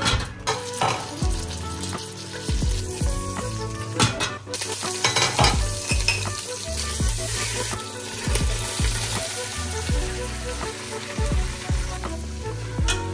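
Food sizzling and frying in a pan while it is stirred, with a utensil knocking against the pan many times.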